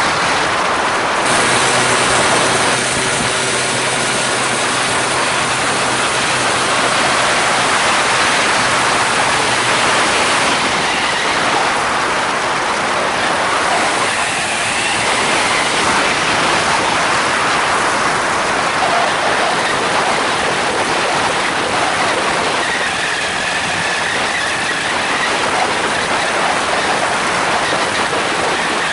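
Steady, loud rush of wind over the camera mixed with the trike's Polini Thor 250 single-cylinder two-stroke engine and spinning propeller running under power during the takeoff run and climb.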